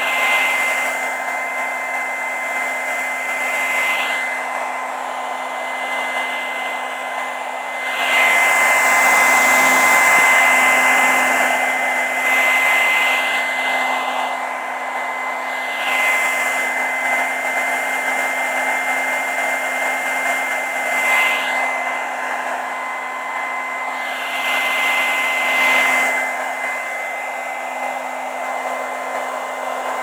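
Handheld hair dryer running: a continuous rush of blown air with a steady whine from its fan motor. It swells and eases every few seconds and is loudest about a third of the way in.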